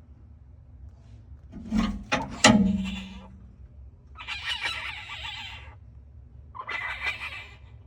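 An animal inside a chimney, sounding vicious. A few knocks and one loud bang with a low ringing hum come about two seconds in. Two harsh, noisy calls follow, about a second and a half apart.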